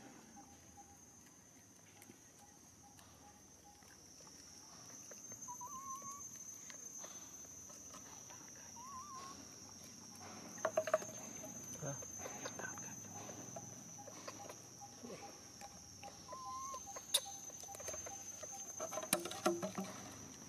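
Steady high-pitched insect buzz, with three short rising squeaks spread through it and a few sharp clicks and knocks in the second half.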